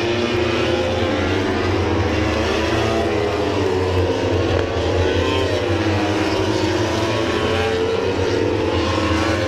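MotoGP race bikes' 1000 cc four-stroke engines running at racing speed around the circuit, their pitch rising and falling as they pass.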